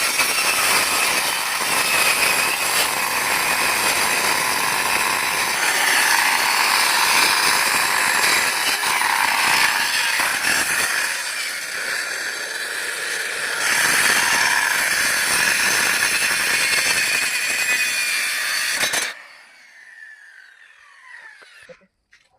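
Electric wood-cutting saw ripping a board lengthwise, a loud steady cutting noise that eases off briefly in the middle. About 19 seconds in the cut stops abruptly and the machine winds down with a faint falling whine.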